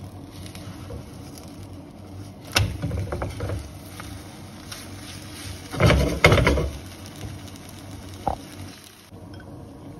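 Omelette frying in a nonstick pan with a steady sizzle, with a spatula knocking and scraping against the pan as it is turned. The loudest clatter comes around six seconds in, with a short knock about two seconds later.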